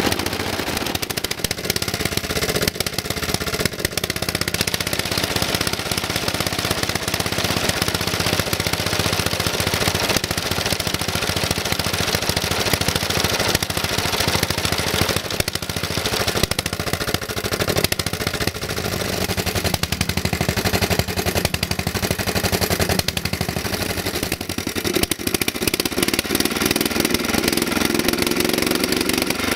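Lombardini LAP 490 single-cylinder engine of a BCS 20000 motor mower running, with a rapid, even train of sharp exhaust pops; its speed picks up in the last few seconds.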